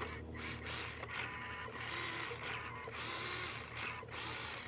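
Small electric motor and gears of a 1/24-scale RC rock crawler whirring as it climbs a rock, swelling and easing in several surges with the throttle.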